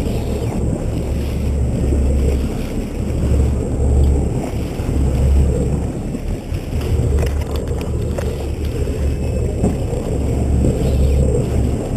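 A boat running at sea: a low, uneven engine and water rumble with water rushing along the hull, and wind buffeting the microphone.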